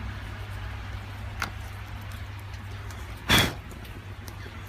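A small firework going off once, a short sharp burst about three seconds in, over a steady low hum, with a faint click a little over a second in.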